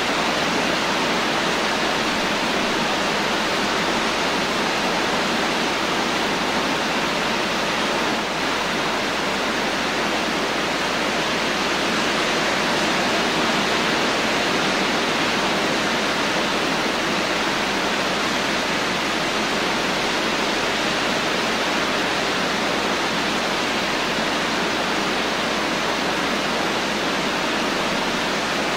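Steady rain falling, a continuous even hiss with no separate drops or thunder standing out.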